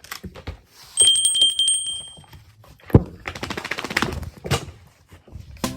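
A small bell rings once for about a second and a half with a fast rattling trill, followed by a single sharp thunk and light clicking and rustling.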